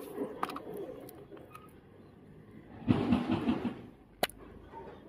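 Hard plastic tool case being handled and slid out of its clear plastic sleeve: a few small clicks and taps, a rustling scrape about three seconds in, and a single sharp click near the end.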